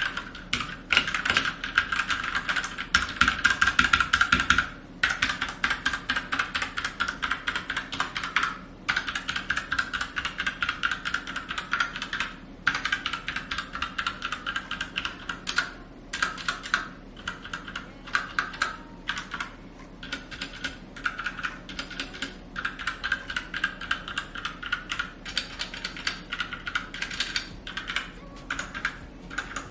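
Typing on a Royal Kludge RK71 mechanical keyboard: a rapid, continuous run of clicking keystrokes across the keys, broken by a few short pauses.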